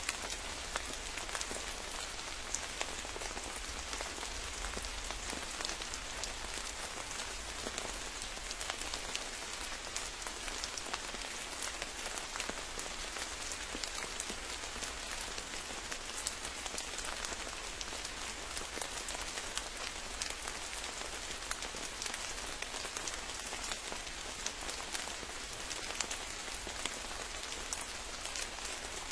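Steady rain falling on foliage, with many individual drops ticking against surfaces throughout.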